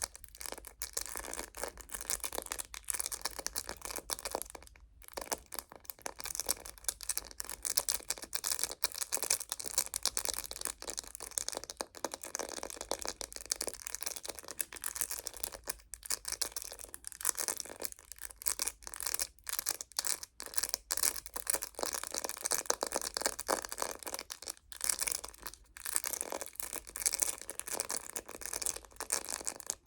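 Fingernails tapping and scratching rapidly on a phone case: a dense, continuous patter of small clicks with a few brief pauses.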